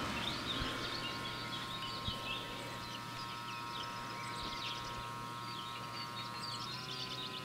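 Songbirds chirping and twittering throughout, over a faint steady hum of several held tones that steps up slightly in pitch near the end.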